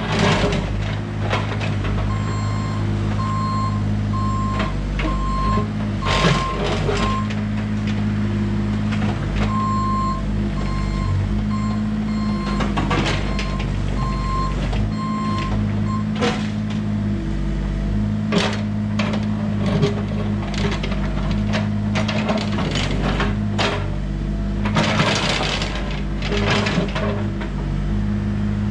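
Bobcat E32 mini excavator's diesel engine running and working under changing load, with the bucket knocking and scraping against loose stones. A beeping backup-style alarm sounds repeatedly from about two seconds in until about halfway, with a short break.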